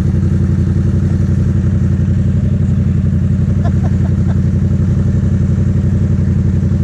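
Yamaha FZ-07's parallel-twin engine running at a steady pace under way, its drone holding one even pitch with no revving or shifting.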